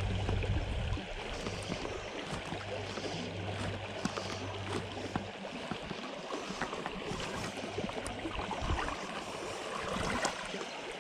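A shallow stream running over stones: a steady rush of water. A low rumble sits under it for roughly the first five seconds, then drops away.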